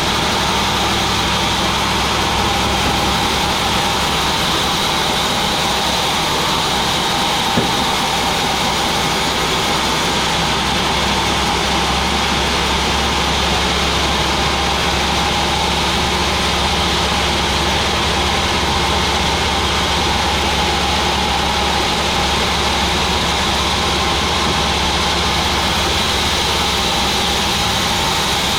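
Sawmill machinery running steadily, a continuous drone with a high whine over it. A single sharp click comes about seven and a half seconds in.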